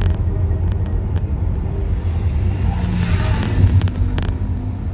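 Car cabin noise while driving: a steady low rumble of engine and road, with a few light clicks a little past the middle.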